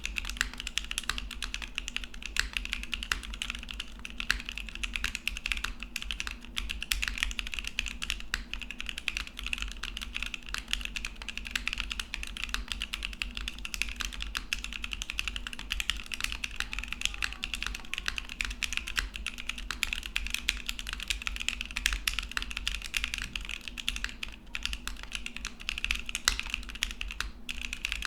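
Continuous fast typing on a custom mechanical keyboard, a gasket-mounted Whatever Studios Paper80 with an aluminium plate and no foam, fitted with Kailh Clione Limacina switches and GMK keycaps. The keystrokes come as a dense, unbroken stream of clicks.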